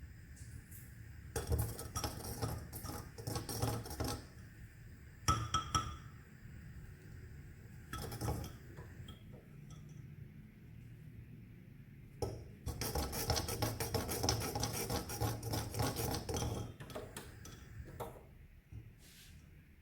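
A spoon stirring masala tea as it boils in a clay pot, clinking and scraping against the pot in several runs of quick strokes with pauses between them, the longest lasting about four seconds past the middle.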